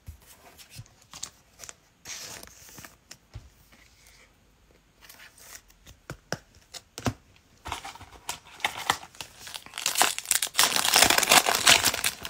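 Foil wrapper of a trading card pack crinkling and tearing as it is ripped open by hand. A few light rustles come first, and the loud, dense crinkling starts about eight seconds in.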